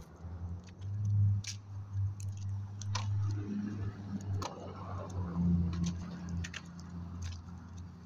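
A pet chewing, with scattered crunchy clicks over a low steady hum.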